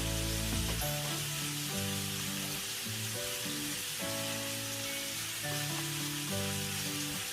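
Peeled prawns sizzling steadily in very hot olive oil in a frying pan, half-cooked and frying on their second side. Background music of held notes changing about once a second plays over the sizzle.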